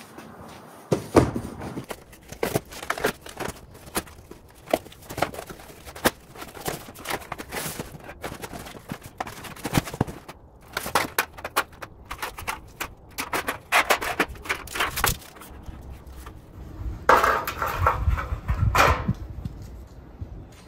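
A cardboard shipping box being torn open and pulled apart by hand: irregular crackling, rustling and tearing of cardboard, with scattered knocks as the new sheet-metal rocker panels are handled. There is a louder stretch of handling noise near the end.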